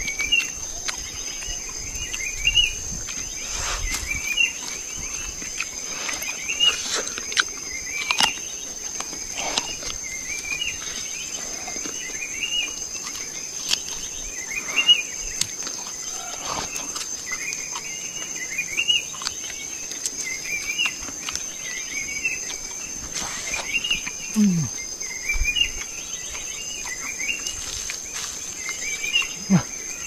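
Outdoor insect ambience: a steady high-pitched insect drone, with short chirps repeating about twice a second and scattered sharp clicks and rustles.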